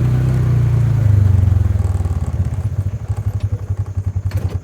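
A motor vehicle's engine running, louder for the first couple of seconds and then settling into an even, throbbing idle. There is a short click near the end.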